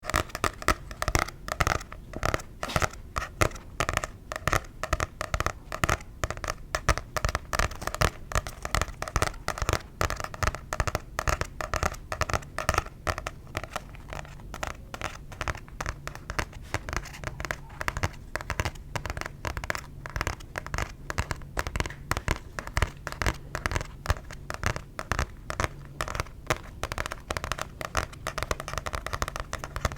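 Rapid, irregular tapping on a book, several close-set taps a second, for ASMR.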